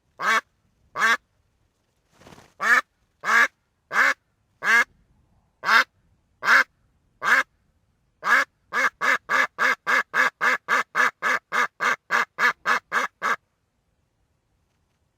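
Duck quacking: single quacks spaced under a second apart, then about eight seconds in a fast run of quacks at about three a second that stops suddenly.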